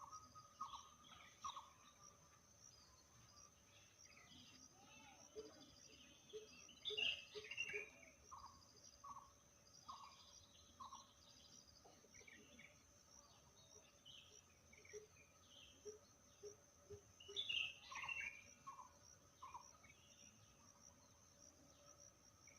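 Several birds calling and singing in short phrases: quick chirps, falling whistled notes and short repeated low notes, over a steady high-pitched insect drone. Two louder bursts of song, about seven seconds in and again near eighteen seconds.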